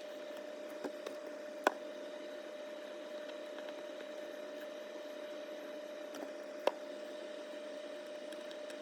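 A steady, even hum with a few sharp clicks of small parts or tools being handled, the loudest about one and a half seconds in and another near the end, during cleaning of a small model-train motor's commutator and brushes.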